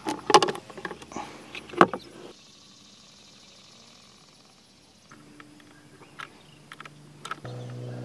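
Sealed lead-acid batteries being set down into a plastic battery box: a few sharp knocks and clatter in the first two seconds, then small scattered clicks as spade connectors are pushed onto the battery terminals. A steady low hum begins near the end.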